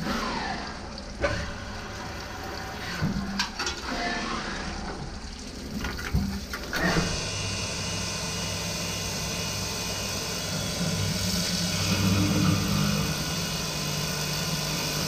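Automatic drilling and chamfering machine at work on a valve lifter: sharp knocks and clicks from its mechanisms in the first half. From about seven seconds in, a steady hum and hiss as the spindle runs with coolant spraying.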